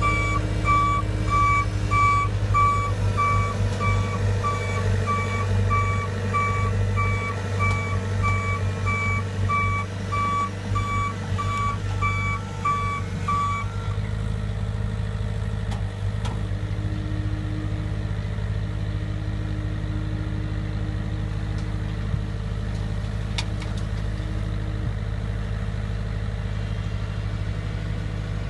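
Reversing alarm on a small construction machine beeping steadily about twice a second over its running engine, meaning the machine is backing up. The beeping stops about halfway through and the engine keeps running.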